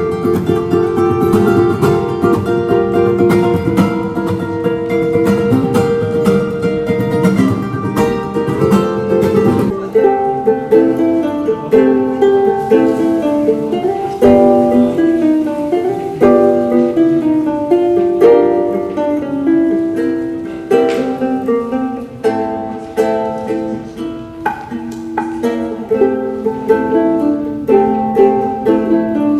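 Instrumental music on a plucked string instrument: dense strummed chords for about the first ten seconds, then a melody picked out note by note.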